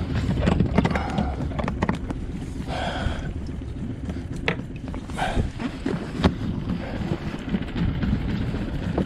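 Wind rumbling on the microphone, with a few sharp knocks and handling noises as a mooring rope is unhooked from a dock cleat.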